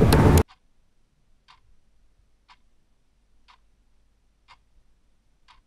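Music that stops abruptly in the first half second, followed by a faint clock ticking steadily, about once a second.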